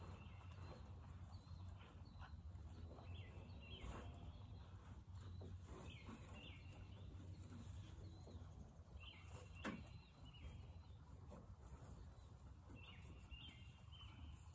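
Faint birdsong: a bird repeats a short chirping phrase about every three to four seconds. There are a couple of soft knocks, the sharpest about two-thirds of the way through.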